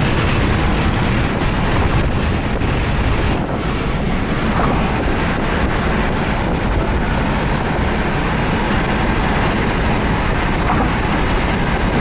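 Steady road noise of a car driving: tyre rumble and wind rushing over the microphone.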